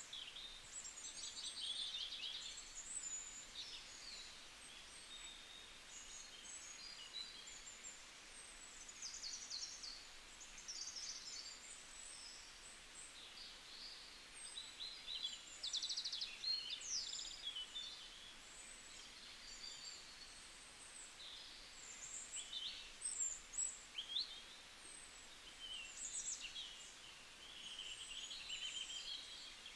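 Several small birds chirping and trilling in overlapping short calls, over a faint steady hiss.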